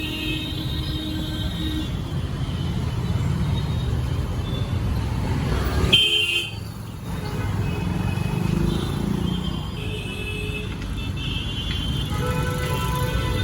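Busy market street ambience: a steady rumble of road traffic, a short vehicle horn toot about six seconds in, and music playing at the start and again near the end.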